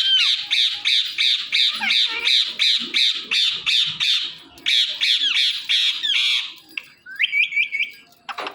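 Indian ringneck parrot squawking: a long run of loud, harsh calls repeated about three times a second, then a short run of four quick rising chirps near the end.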